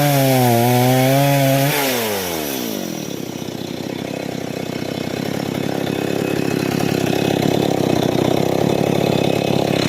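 Stihl chainsaw running at high revs through sengon wood, then the throttle is released about two seconds in and the engine note falls steeply to a steady two-stroke idle.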